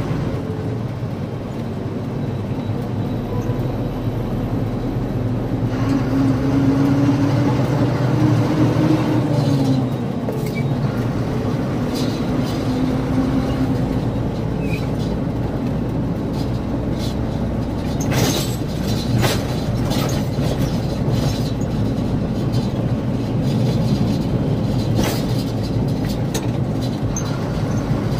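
Loaded goods truck's diesel engine running under load, heard from inside the cab, its pitch rising for a few seconds and then dropping about ten seconds in. Sharp knocks and rattles from the cab come through the second half.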